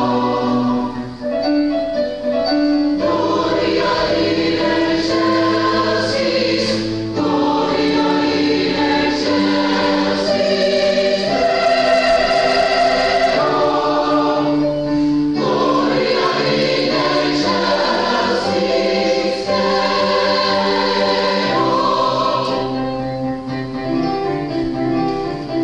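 A choir singing, holding sustained chords that change every few seconds.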